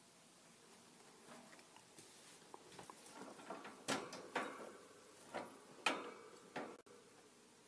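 Light rustling and small clicks from a wire pet-rat cage with wood-shaving bedding as a hand works at the bars, with several sharper clicks of the wire bars about four to six and a half seconds in.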